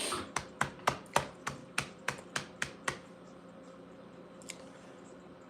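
Quick, evenly spaced tapping clicks, about three a second for some three seconds, then a single faint tick later on.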